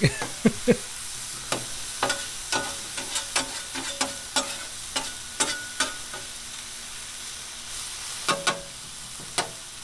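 Chopped steak sizzling on a Blackstone 22-inch griddle's steel flat top while metal blades chop and scrape through it, the blades clacking sharply and irregularly against the griddle, with a lull of about two seconds about two-thirds through.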